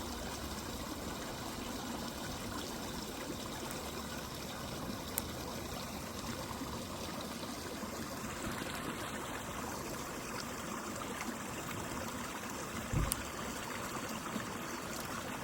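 Mountain river flowing steadily, with a few sharp pops from a crackling campfire, the loudest with a low thump near the end.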